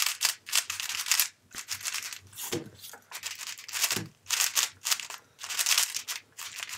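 Moyu Aolong V1 3x3 speedcubes being turned fast by hand: a quick run of plastic clicks and scrapes as the layers turn, several a second with short pauses.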